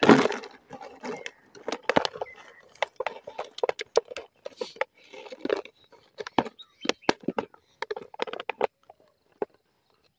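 A Labrador puppy chewing an empty plastic water bottle, the plastic crackling and crunching in quick irregular clicks. The loudest crunch comes right at the start, and the crackling thins out near the end.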